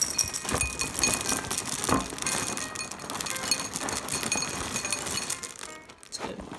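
Dry ring-shaped cereal pouring from a box into a ceramic bowl, the pieces clattering and clinking against the bowl in a dense patter.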